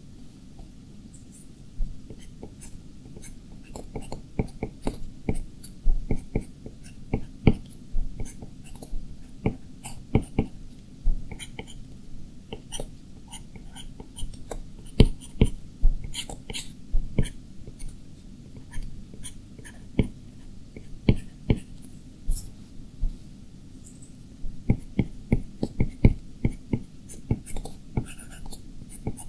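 A stylus tapping and stroking on an iPad Pro's glass screen while drawing: irregular sharp little clicks, coming in quick clusters in places, over a low steady hum.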